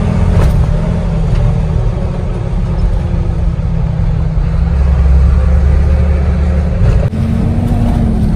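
Truck engine running as the truck drives, heard from inside the cab as a steady low drone. About seven seconds in the engine note breaks briefly and settles at a slightly different pitch.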